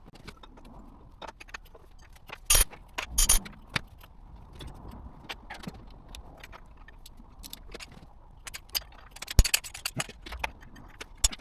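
Scattered metallic clinks and jangles of tools and parts being handled while working on the timing end of a BMW V8 engine. There are a few louder clanks about two and a half and three seconds in, and again around nine seconds.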